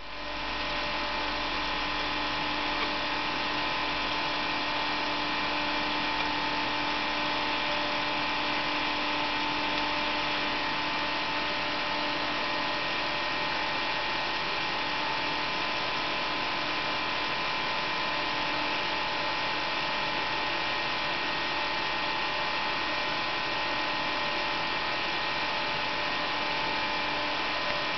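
Cooling fan for a 500-watt transmitter tetrode running steadily: a constant whir of air with a steady whine in it.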